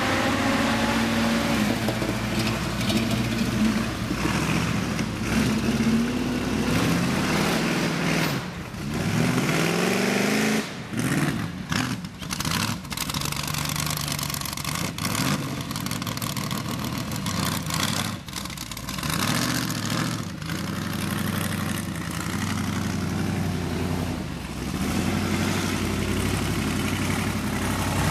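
Off-road vehicle engines, a Jeep Wrangler's and a lifted mud truck's, running and revving over rough ground. The pitch climbs and drops several times, with the strongest revs in the first ten seconds.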